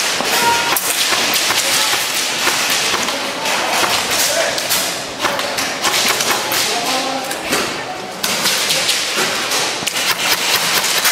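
Airsoft guns firing in irregular rapid volleys, with BBs snapping and knocking against walls and obstacles in an indoor close-quarters arena.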